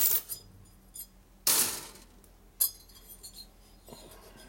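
Light metallic clinks as a piston ring is handled at the bore of a Harley Evolution cylinder: a sharp clink at the start, a louder ringing one about a second and a half in, and a short click a second later.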